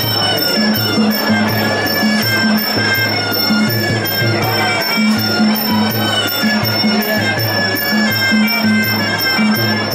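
Sarama, the traditional Muay Thai fight music: a pi java oboe playing a melody over a steady drum beat.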